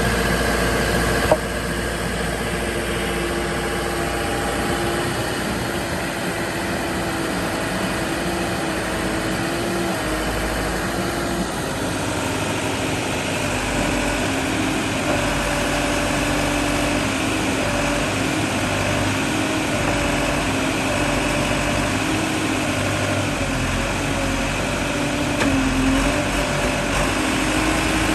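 Engine of a piece of construction equipment running steadily at idle, its pitch wavering slightly. There is a sharp click about a second in, where the engine sound shifts a little.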